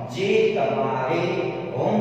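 A man's voice talking in a rhythmic, sing-song lecturing manner; only speech, no other sound.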